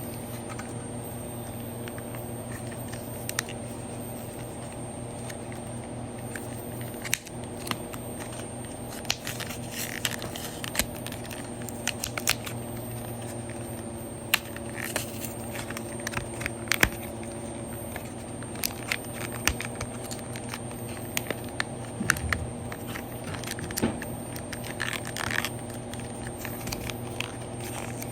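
Small clicks, taps and scrapes of handheld game controllers and their silicone thumb-grip covers being handled, scattered irregularly, over the steady hum of room fans.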